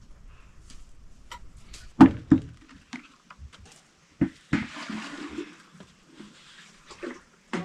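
A few sharp knocks, then a rushing noise for about a second and a half, like water pouring or splashing.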